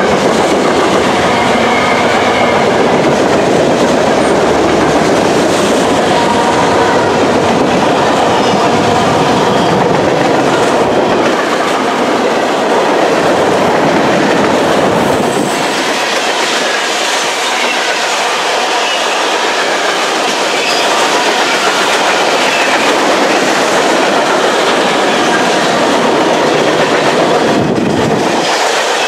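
A long freight train's cars rolling past, steel wheels running on the rails in a loud, steady rolling noise. About halfway through the deep rumble drops away.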